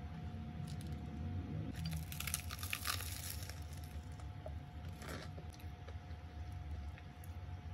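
Crisp crunching of a toasted-bread sandwich filled with brie and apple slices being bitten and chewed: a run of crunches about two seconds in, then a shorter one about five seconds in.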